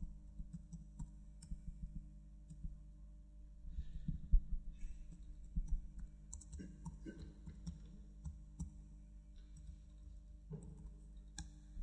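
Faint, irregular clicking and tapping of laptop keys as someone types, with one low thump about four seconds in.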